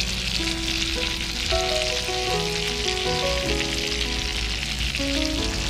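Pieces of flying fish frying in oil in a frying pan, a steady crackling sizzle. A melody of background music plays over it.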